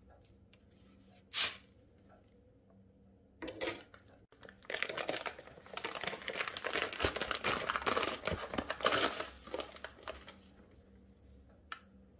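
Crinkling and tearing of a dry-yeast packet as it is handled and torn open, a dense crackle lasting about five seconds in the middle, with a couple of short rustles before it as sugar goes into a plastic zip-top bag.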